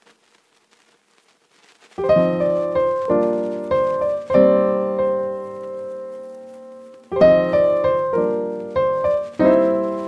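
Background piano music: after about two seconds of near silence, struck notes and chords come in, each ringing and fading before the next.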